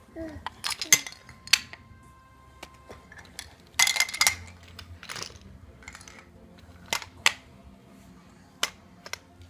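Magnetic building toy pieces, plastic sticks with steel balls, clicking and clacking against each other. The sharp clicks are irregular, about a dozen, with a quick flurry about four seconds in.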